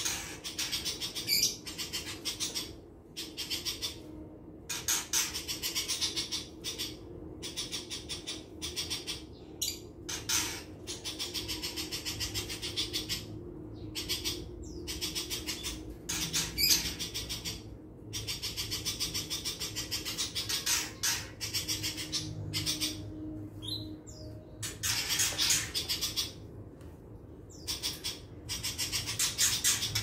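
Caged pentet monyet, a shrike kept as a songbird, singing in long runs of rapid chatter broken by short pauses.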